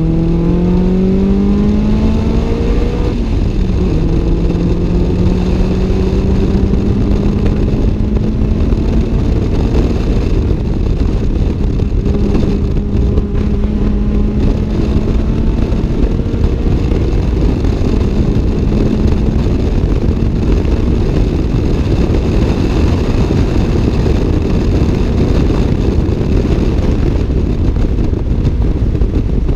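Toyota AE86 Levin's 4A-GE 1.6-litre twin-cam four-cylinder engine at speed, heard from inside the cabin. It revs up, shifts up about three seconds in, then pulls again and holds high revs, over steady wind and road noise.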